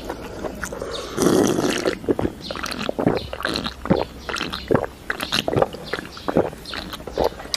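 A person gulping a drink straight from a can: a run of irregular swallowing clicks and gulps, with a breathy rush about a second in.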